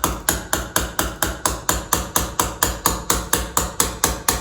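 Surgical mallet tapping a suture anchor down into the bone, with steady, evenly spaced strikes at about four a second.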